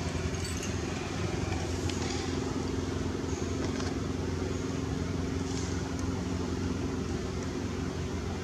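A steady low engine hum that does not change.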